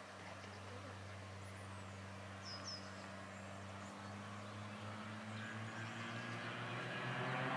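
Cessna 185 Skywagon's engine and propeller droning with a steady low tone on its takeoff run, growing steadily louder as the plane comes closer. A bird chirps twice about two and a half seconds in.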